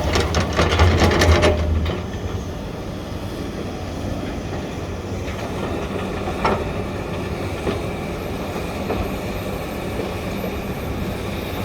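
SANY excavator working: its diesel engine runs steadily while a rattling clatter of steel parts sounds through the first two seconds, then settles to the engine with a single knock about six and a half seconds in.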